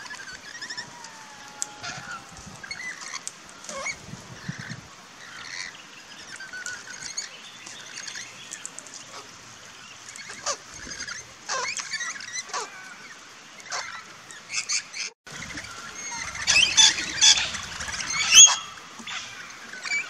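Parrots, rainbow lorikeets and crimson rosellas, chattering with short chirps and screeches throughout. A louder run of shrill calls comes about three-quarters of the way in.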